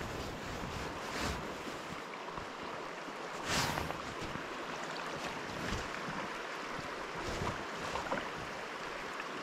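River water flowing and lapping steadily around the angler, with a brief louder swish about three and a half seconds in.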